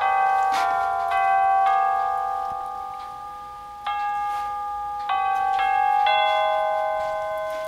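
Adler 20160 wall clock's electronic chime playing a melody of bell-like tones through its built-in speaker. Notes are struck about half a second apart and ring on, in two runs with a pause around the middle.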